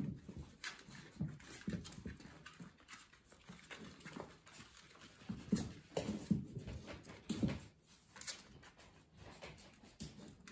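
Papillon puppies and adult papillons at play, making short, scattered dog noises, with claws tapping on a wooden floor.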